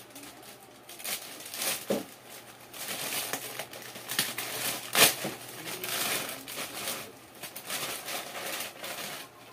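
Thin plastic shopping bag crinkling and rustling as it is handled and items are taken out of it, with a sharp crackle about five seconds in.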